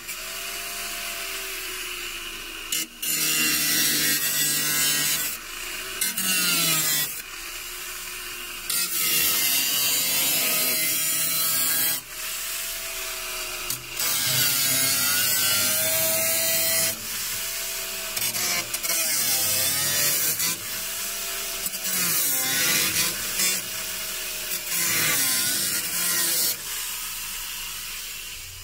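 Angle grinder cutting through the car's painted steel rear bulkhead panel, in repeated loud stretches of cutting with the motor's pitch dipping and recovering between them.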